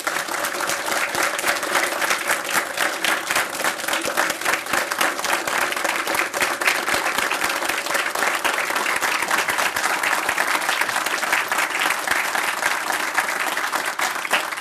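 An audience applauding: many hands clapping in a dense, sustained patter that holds steady throughout.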